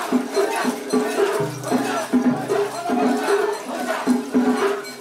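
Rhythmic Japanese festival music with the mikoshi bearers' voices chanting in time as they carry the portable shrine. A brief steady low tone sounds about one and a half to three seconds in.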